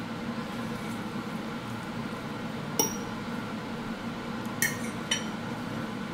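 A utensil stirring food in a bowl, clinking against the bowl three times: once about three seconds in and twice near the end, over a steady low hum.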